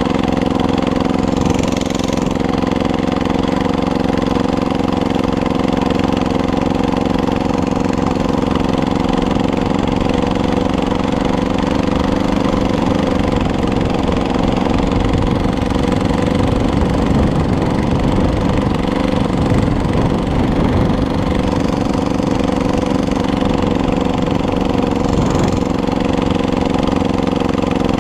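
Small engine of a homemade motorized bike running steadily at an unchanging speed.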